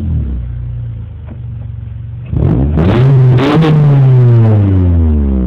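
2001 Honda Prelude's 2.2-litre four-cylinder engine through an aftermarket race exhaust, idling, then revved once about two seconds in. The pitch rises to a peak and falls slowly back toward idle, without reaching red line.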